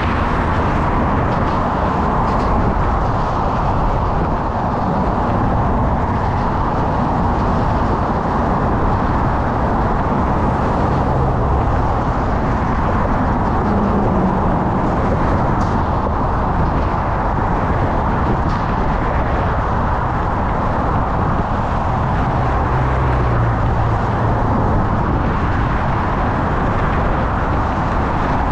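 Steady rushing noise picked up by a GoPro on a moving bicycle: wind on the microphone mixed with the sound of passing motor traffic. A vehicle's hum rises briefly about halfway through and again near the end.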